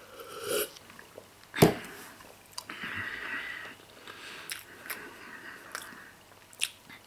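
A person taking a sip from a cup, then biting and chewing a mouthful of Emmentaler cheese, with small wet mouth clicks. A single sharp knock about one and a half seconds in is the loudest sound.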